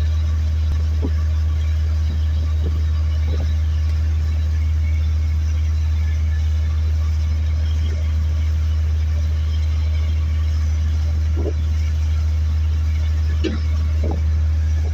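A fishing boat's engine running at a steady, low drone while the boat is under way.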